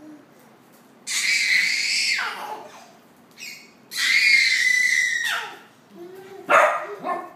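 Small dog barking at a baby offering it a toy: two long, high-pitched drawn-out barks that drop in pitch at the end, then two short sharp barks near the end.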